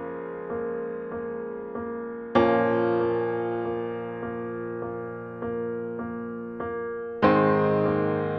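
Slow, gentle solo piano music: soft notes repeated about every half second, with two louder chords struck about five seconds apart, each left to ring and fade.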